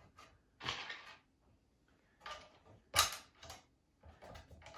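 Handling noises as the handle of an Earthway garden seeder is fitted onto its frame: several short scrapes and rattles, with a sharp click about three seconds in, the loudest.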